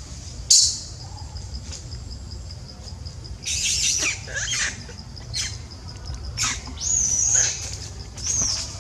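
Loud, high-pitched squealing animal calls over a steady, evenly pulsing insect chirr. There is one short call about half a second in, then a run of them from about three and a half seconds on; the last two hold a high whistling note and drop away at the end.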